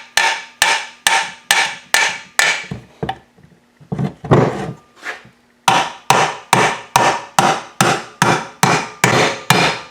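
Hammer tapping a new crankshaft bearing into the aluminium crankcase of a 2001 Yamaha WR426F engine: steady metallic blows, about three a second, each ringing briefly. The blows pause for about a second around three seconds in, then resume.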